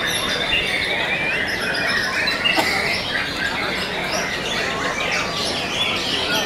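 White-rumped shamas (murai batu) in hanging cages singing at once, many birds' songs overlapping in a dense, unbroken chatter of quick whistles and chirps.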